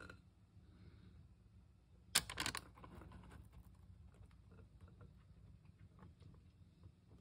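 A brief cluster of sharp clicks and knocks about two seconds in, then faint scattered ticks and soft patter, as a bowl is tipped and thick cheesecake batter is poured into a parchment-lined pan. A low hum runs underneath.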